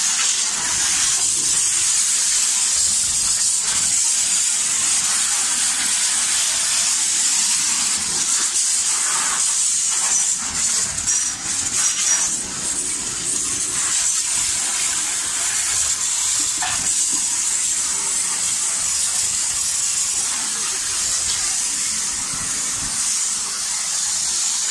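High-pressure water jet from a hose hissing steadily as it sprays and splashes against the steel side of a railway passenger coach, the level wavering briefly around the middle.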